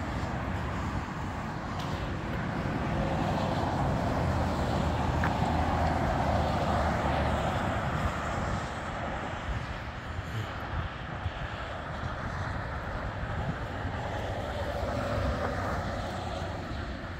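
Road traffic passing: the tyre and engine noise of a car swells and fades about three to eight seconds in, and another pass swells more faintly near the end, over a steady low outdoor rumble.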